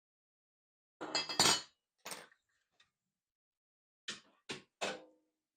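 Hard objects clinking and knocking as they are handled: a quick flurry of clinks about a second in, a couple of lone clicks, then three separate clinks near the end, the last ringing briefly.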